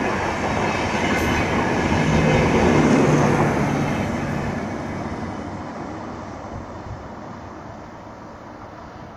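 Indian Railways LHB passenger coaches rolling past, wheels running on the track, loudest about two to three seconds in as the last coaches go by, then fading steadily as the train pulls away.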